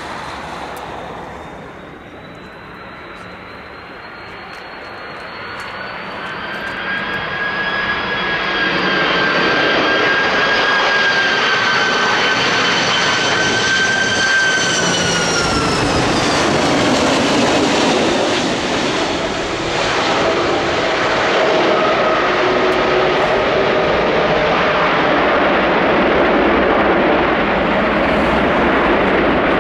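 Airbus A330-200 jet engines on a landing approach: a whine grows louder as the airliner comes in, and its several tones drop in pitch together about halfway through as it passes and touches down. A broad, steady rushing roar follows as it rolls out along the runway.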